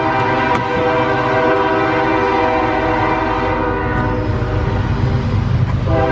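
Train horn sounding a long sustained blast, a steady chord of several tones over the low rumble of the train. The horn drops away for about two seconds past the middle and sounds again just before the end.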